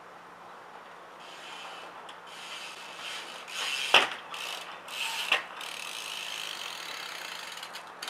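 BMX bike's rear hub ratcheting as the rider coasts up to a jump, building from about a second in, with two sharp knocks about four and five seconds in.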